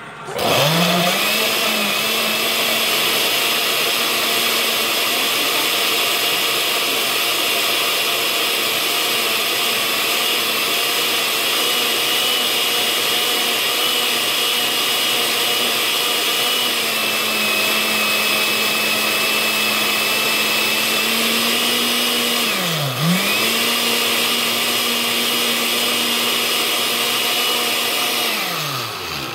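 Oster countertop blender's motor running at speed, blending milk, spinach and banana into a shake. It spins up at the start, dips briefly and spins back up late on, then winds down at the end.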